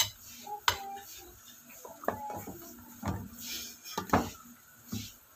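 Kitchen utensils and dishes clinking and knocking, about six sharp clinks spread out, the loudest right at the start and about four seconds in.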